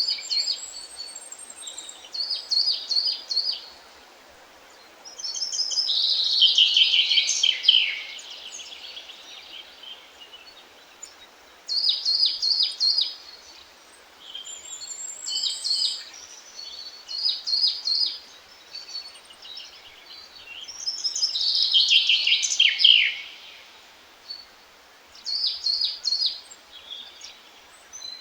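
Songbirds singing in short repeated phrases of quick high notes, with two longer descending trills, over a steady faint hiss.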